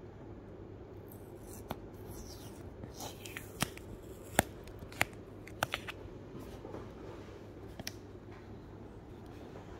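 Clear sticky tape being picked and peeled off a cardboard box, scratchy peeling with several sharp clicks, the loudest about four seconds in; then the box lid is lifted open.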